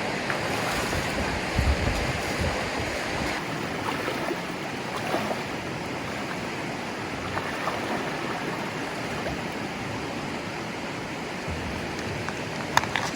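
Steady rush of moving water, with wind buffeting the microphone in the first couple of seconds and a sharp click near the end.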